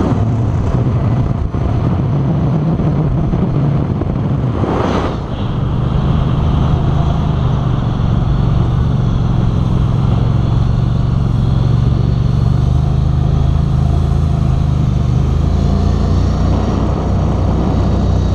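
Mud Buddy Sport V 44 hp mud motor running steadily under way, pushing the boat through shallow water, with a brief dip about five seconds in.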